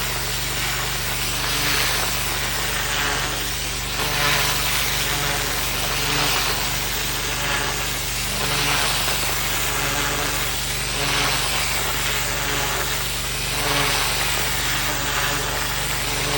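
Pressure washer's engine running steadily while its high-pressure water jet blasts into garden soil and weeds, the spray hiss swelling and fading every couple of seconds.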